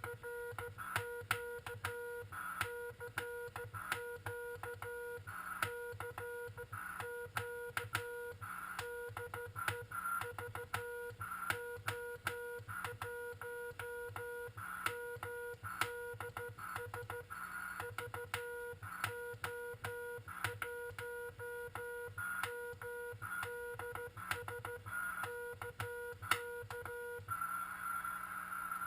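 Morse code (CW) from a Frog Sounds QRP transceiver on 7.023 MHz: a tone of about 500 Hz keyed on and off in dots and dashes, with a click at each keying and receiver hiss in the gaps. The keying stops near the end, leaving only the hiss.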